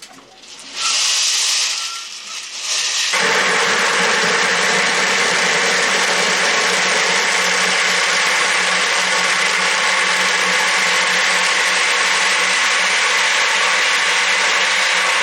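Electric cement mixer running as a shot tumbler: its drum turning a load of lead buckshot and steel balls, a steady loud rushing rattle over a low motor hum. A short burst comes about a second in, and the full steady run starts about three seconds in.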